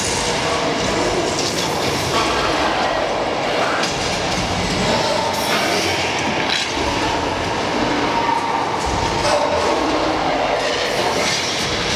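Open-sided studio tour tram running, a steady rolling noise of the moving vehicle.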